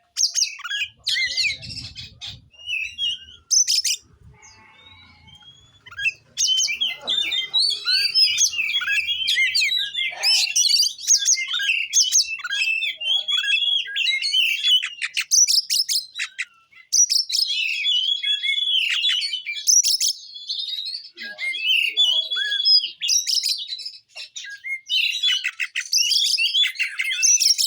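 Oriental magpie-robin singing a fast, varied song of chirps and whistles, with a short pause about four seconds in.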